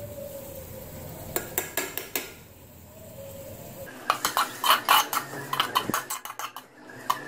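Slotted turner scraping and clinking against an aluminium cooking pot while onions, tomatoes and spices are stirred: a few taps early, then a quick run of scrapes and clinks over the last few seconds.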